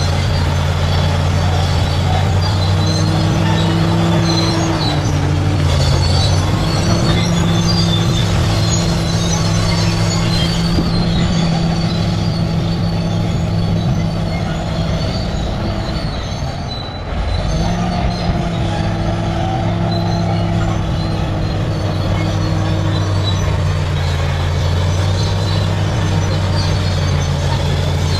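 Large crawler bulldozer's diesel engine running hard under load, with its steel tracks squealing and clanking. The engine eases off briefly about two-thirds of the way through, then picks back up.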